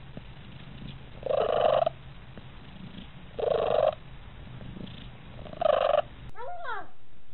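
Domestic cat purring steadily, broken by three loud, short, hoarse calls about two seconds apart. Near the end comes a brief meow.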